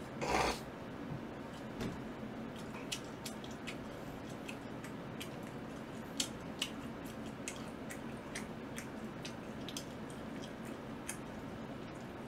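A person eating sauce-coated Korean seasoned fried chicken (yangnyeom chicken) with chopsticks: wet chewing with many small scattered clicks and smacks. There is a short noisy burst just at the start and a faint steady hum underneath.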